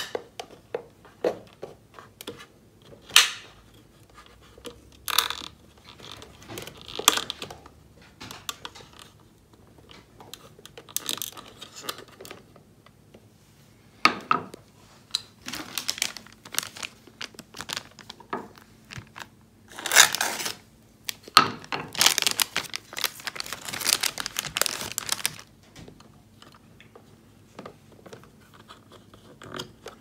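A knife blade prying and scraping at the chip on a plastic Fuji Xerox laser-printer toner cartridge, with irregular clicks and knocks as the cartridge is handled. About two-thirds of the way through comes a longer stretch of dense scratching and rustling.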